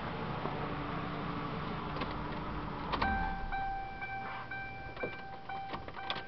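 Ford Crown Victoria 4.6-litre V8 idling, then switched off with a click about three seconds in. A car's electronic warning chime follows, sounding in short repeated tones.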